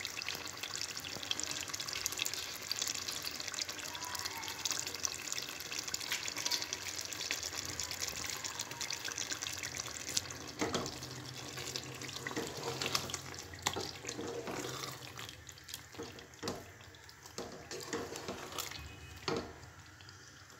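Thick aloo baingan curry of potato and aubergine simmering in a pot, a dense crackle and sputter that thins to scattered pops about halfway through.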